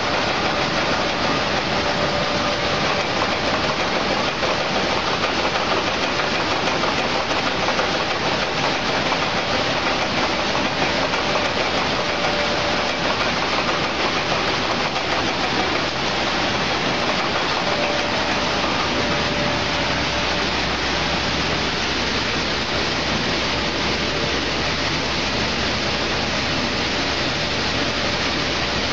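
Raisin colour sorting machine running, with raisins pouring down its outlet chutes into sacks: a loud, steady rushing hiss with a faint steady hum.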